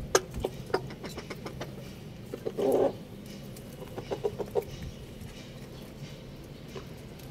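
Chickens clucking: a run of short calls, one louder call about three seconds in, and a few more short calls after it.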